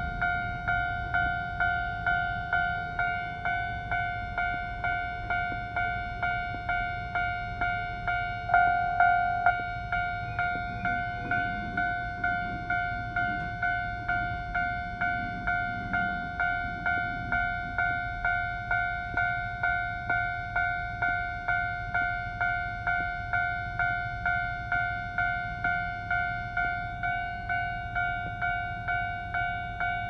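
Japanese railway level-crossing warning bell ringing steadily: an electronic 'kan-kan' tone struck about twice a second, each strike fading quickly.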